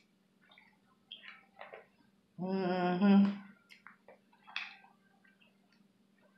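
Close-up eating sounds while eating spaghetti: small wet chewing and slurping clicks, with a hummed "mmm" lasting about a second a little before the middle.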